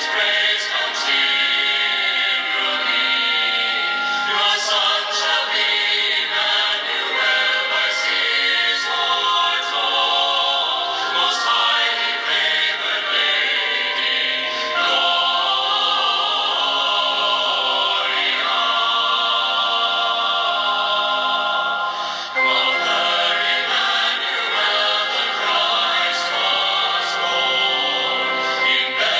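Choir singing sacred music, several voices holding long notes in chords. The singing breaks off briefly about three-quarters of the way through and starts again.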